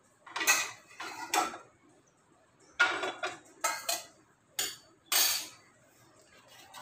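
Metal cookware clattering as a kadhai and stainless steel bowls are picked up and set down, in about six separate clanks and scrapes.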